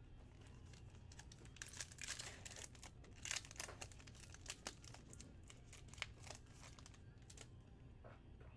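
Faint crinkling and tearing of a Panini Prizm Draft Picks football card pack's wrapper as it is torn open by hand. The crackling is busiest in the middle, with a few scattered crackles later on.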